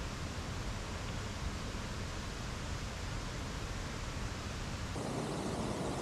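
Steady rush of a mountain stream and waterfalls running high after heavy rain. About five seconds in the sound changes abruptly to a fuller rush in the middle range.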